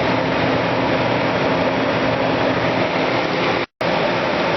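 Dehumidifier running: a steady fan rush with a low compressor hum. The sound drops out for a split second nearly four seconds in, then the running noise resumes.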